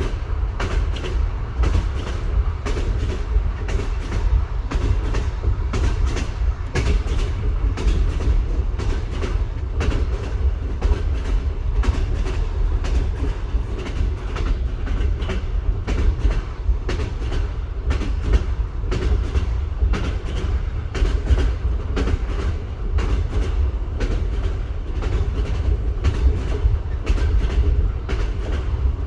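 Train wheels knocking over rail joints in a dense, unceasing clatter over a steady low rumble of the running train.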